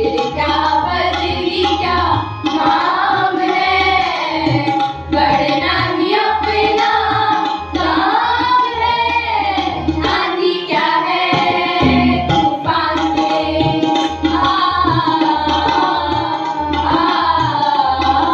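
A chorus of young voices singing an Indian song in unison, accompanied by tabla with its pulsing low bass drum and a harmonium holding steady notes.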